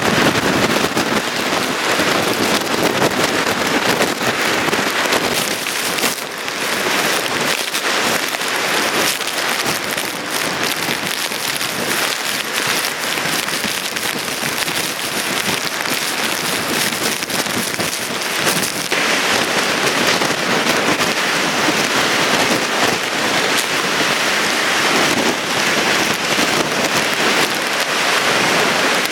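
Hurricane wind and heavy driving rain, a loud, dense, steady hiss that rises and falls only slightly.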